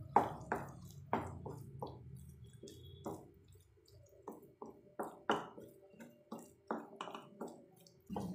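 A spatula scraping and knocking against a tawa while ground tender coconut in ghee is stirred, in short irregular strokes about one or two a second.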